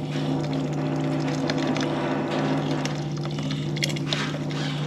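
Small Facet electric fuel pump buzzing steadily at one pitch, running on about 18 volts as it pumps water out of the boat's contaminated fuel tank.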